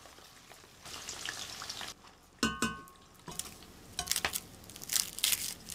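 Kitchen work sounds: a brief sizzling hiss of sliced onions deep-frying in oil, a single ringing metallic clink of a utensil on a pan about two and a half seconds in, and dry crackling clicks near the end as a head of garlic is broken apart and peeled.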